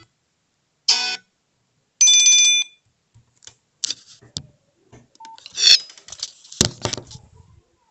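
Short Nokia 300 phone alert tones: a brief chime about a second in, then a steady electronic beep, followed by a run of scattered short clicks and sound-effect noises.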